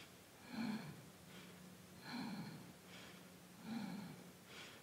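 A woman's faint breathing: three short, audible breaths about a second and a half apart, over a faint steady hum.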